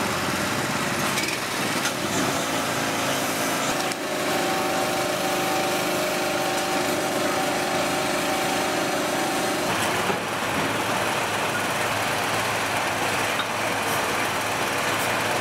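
An engine-driven high-pressure washer runs steadily, its motor drone mixed with the hiss of the water spray. The motor's tone shifts slightly a few seconds in and again about ten seconds in.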